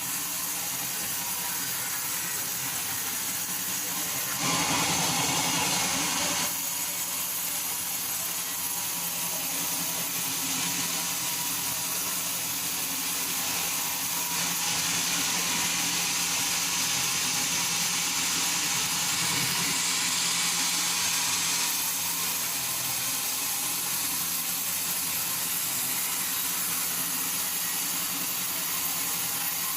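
Sawmill machinery running steadily: a low engine hum under a constant hiss, louder for about two seconds a few seconds in and again for several seconds in the middle.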